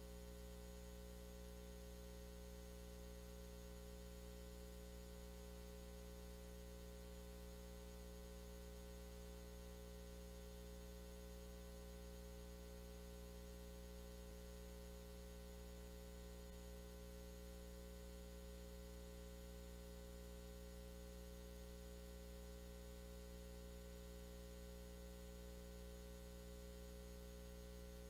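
Faint steady electrical mains hum with a light hiss, unchanging throughout; nothing else is heard.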